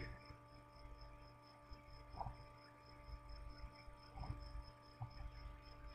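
Near silence: room tone with a faint steady electrical hum, a very faint high-pitched pulsing tone about five times a second, and a few soft faint ticks.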